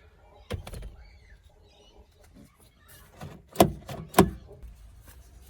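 Cordless drill-driver doing up the Phillips screw that holds a new inner door handle, run in short bursts with clicks and knocks; the two loudest knocks come close together about two-thirds of the way through.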